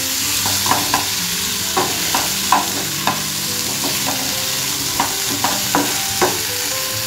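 Diced potatoes and onions sizzling in hot mustard oil in a frying pan while being stirred with a metal spatula. The spatula scrapes and knocks against the pan in about a dozen irregular clicks over the steady sizzle.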